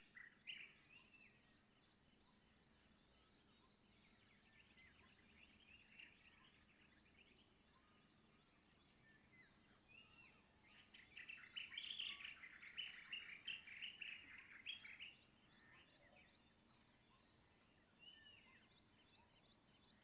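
Near silence, with faint bird chirps in the background that come in a thicker run about halfway through.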